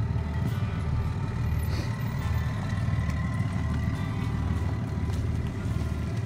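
Boat engine running steadily with a low rumble and a faint steady whine above it.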